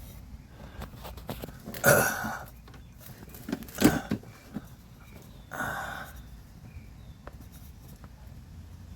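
A man's short grunts or forced breaths, three of them about two seconds apart, as he strains to hand-tighten a new oil filter.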